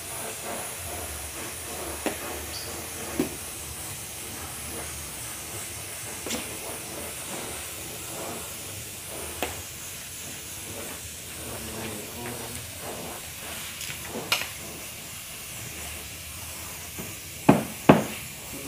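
Gravity-feed compressed-air spray gun hissing steadily as it sprays paint. A few short sharp clicks come through now and then, the loudest two close together near the end.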